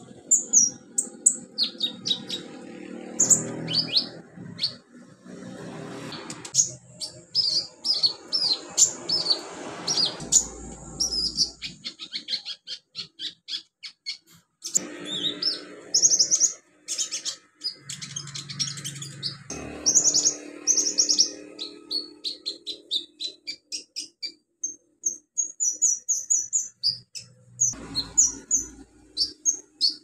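Caged sunbird (konin, 'kolibri ninja') singing: fast runs of thin, high-pitched chirps and trills, with short breaks about halfway through and again near the end.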